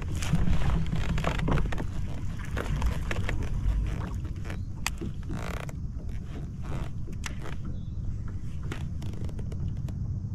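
Kayak creaking, with scattered clicks and knocks of gear being handled and a longer scraping burst about five seconds in, over a steady low rumble.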